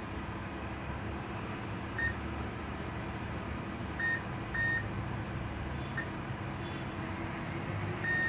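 Digital multimeter's continuity buzzer beeping as the probes touch a motherboard line. There are short beeps about two seconds in and twice around four seconds, a brief blip near six, then a steady beep starting just before the end. The beep shows near-zero resistance: the line to the IC is shorted, which the technician takes for a faulty IC.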